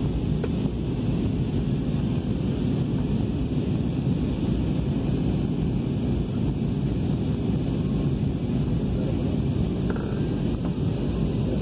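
Jet airliner cabin noise in flight: a steady, deep rush of engine and airflow sound heard through the fuselage while the plane descends to land.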